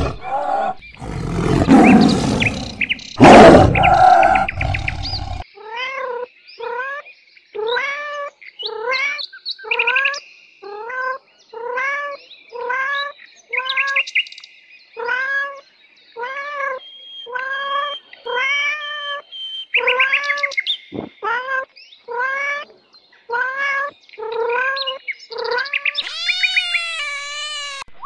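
A tiger growling and roaring for the first five seconds, then a domestic tabby cat meowing over and over, about once a second. A different, higher-pitched animal call comes near the end.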